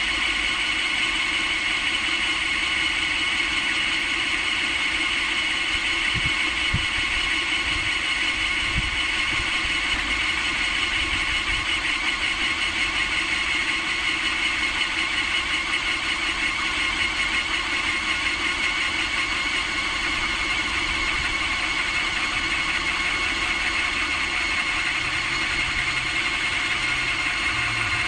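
A motor running steadily, a continuous even drone with a strong high whine in it.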